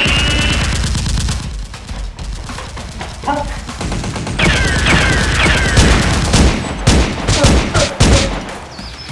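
Rapid automatic gunfire, a fast continuous burst for about the first second and a half, then scattered shots. Several short falling whistles come about halfway through, followed by a run of loud single shots.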